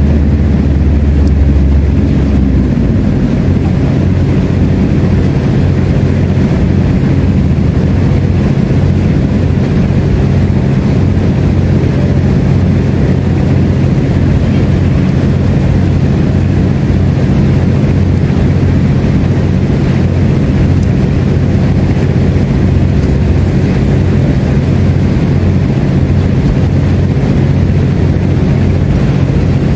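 Engine running steadily at idle: a continuous low, even hum.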